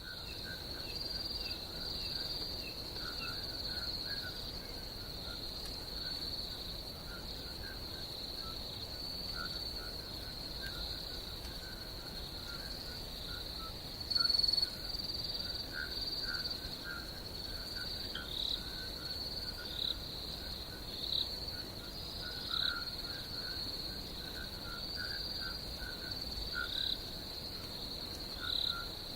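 Night ambience of insects, crickets, trilling steadily at a high pitch, with scattered lower chirping calls underneath. A louder chirp comes about halfway through.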